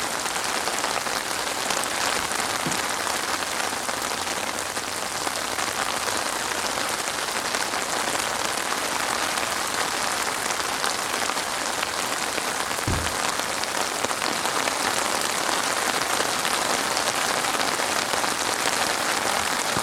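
Steady rain falling, an even, unbroken patter that cuts off abruptly at the end.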